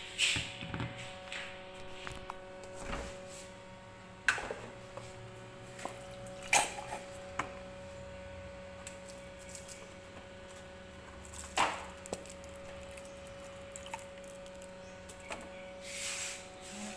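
Scattered knocks and clicks, loudest a few times spread through the stretch and bunching near the end, over a steady low hum.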